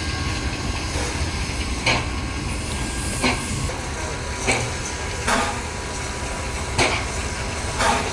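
Small steam tank locomotive moving slowly over the tracks: a steady hiss and rumble with a short sharp beat every second or so.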